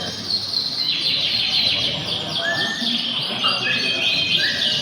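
Many canaries singing at once: dense, overlapping fast trills and chirps, with short rising whistled notes breaking through every second or so.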